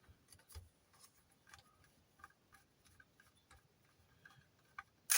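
Small screwdriver undoing laptop screws: faint, irregular light clicks and ticks, with a sharper knock at the very end.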